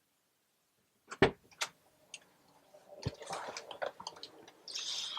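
Door and handling sounds: a few sharp clicks and knocks with some rustling, then a louder thump right at the end.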